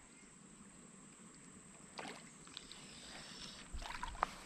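Faint splashing and rustling of a hooked largemouth bass fighting at the surface among lily pads, a few scattered splashes, then a small cluster of louder ones near the end.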